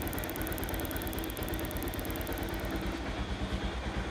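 Bajaj Pulsar 180 UG4's single-cylinder air-cooled engine idling steadily, with a fine fast ticking over it that stops about three seconds in. The engine is running with the battery fuse pulled, on the magneto coil and regulator-rectifier alone, a sign that the charging system works.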